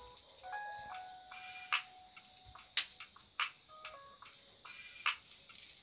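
Steady high chirring of crickets, with a few sharp clicks and scrapes of a spatula against the wok as potatoes are stir-fried.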